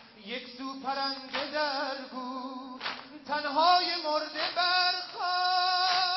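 A lead voice chanting a Shia mourning lament (noha) with wavering melismatic ornaments and a long held note near the end. A sharp beat falls about every one and a half seconds, the rhythm of the mourners' chest-beating (sineh-zani).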